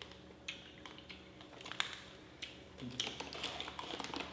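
Faint, irregular crunching clicks of someone chewing a mouthful of hard nut mix for parrots.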